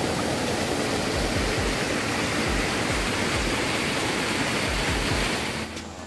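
Water rushing and splashing as a shallow rocky stream cascades over stones, a steady rush that fades out near the end.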